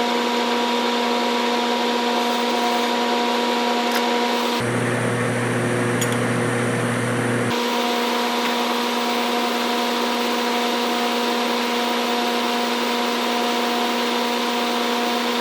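Metal lathe running steadily under power with a constant hum, with several steady tones, while a high-speed steel shear tool takes a very light cut in mild steel. For about three seconds near the middle the hum abruptly drops to a deeper tone, then switches back just as abruptly.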